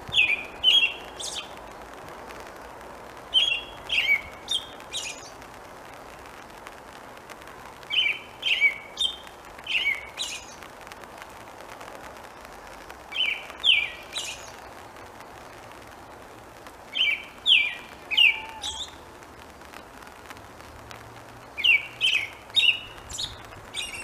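American robin singing: six short bouts of three to five clear whistled notes, one bout every four to five seconds, over a steady hiss of rain.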